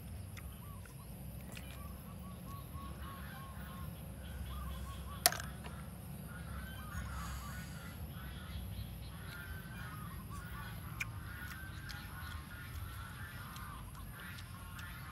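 Birds calling in runs of short, repeated honking calls over a steady low rumble, with one sharp click about five seconds in.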